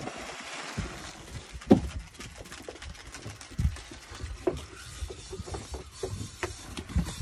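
Irregular knocks and low thumps of the phone being handled and moved about on a fibreglass boat, over a faint hiss. The loudest knock comes about a second and a half in.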